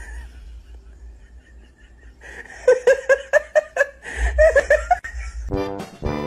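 A person laughing in quick repeated bursts for a couple of seconds. Near the end, accordion music starts.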